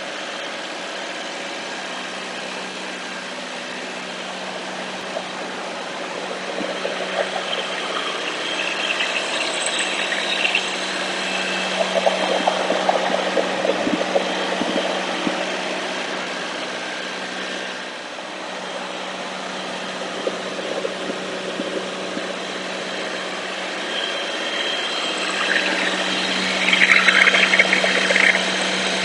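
The 4-cylinder diesel engine of a Lincoln Air Vantage 500 engine-drive welder running at a steady idle, getting louder near the end.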